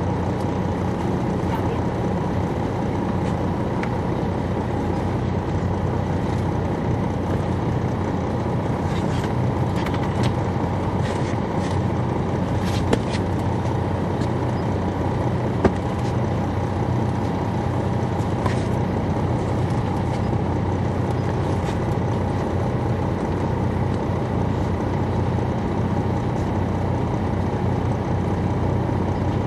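Detroit Diesel Series 60 inline-six diesel of an MCI D4000 coach heard from inside the bus, running at a steady engine speed with a few small clicks and rattles around the middle.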